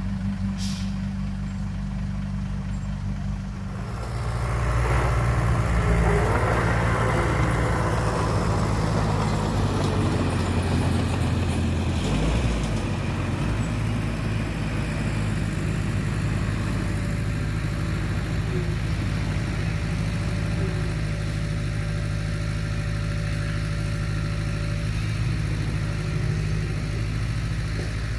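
Heavy diesel engine running steadily. About four seconds in it grows louder and a rougher, noisier sound joins it, easing off after about twelve seconds.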